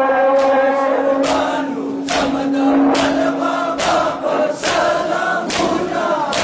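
A crowd of men chanting a Pashto noha together, with a held note in the first half, while mourners beat their chests in time (matam): a sharp slap a little more often than once a second.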